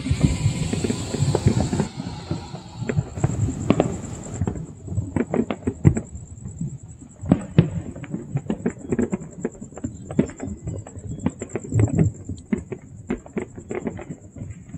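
Many distant fireworks and firecrackers going off across a wide area: an irregular, dense run of overlapping pops and bangs, several a second.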